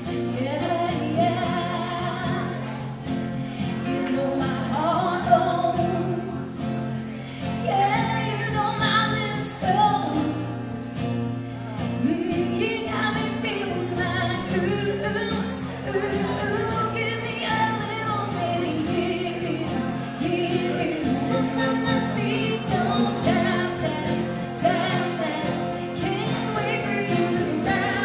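Live acoustic pop song: a woman singing, accompanied by two strummed acoustic guitars.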